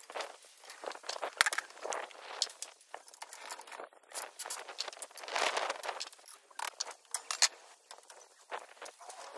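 Steel scaffold tubes and fittings clanking and clinking as scaffolding is put up, a busy irregular run of metallic knocks and clinks.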